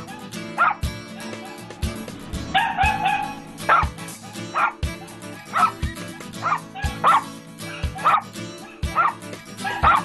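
Yorkshire terrier barking in short, high yaps, roughly one a second, over background music with a steady beat.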